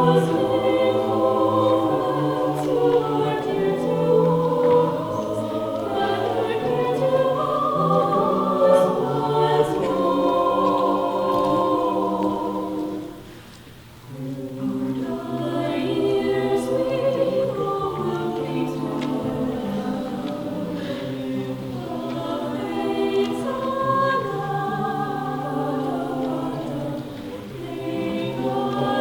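High school madrigal choir singing a cappella in several parts, with a short break between phrases about halfway through.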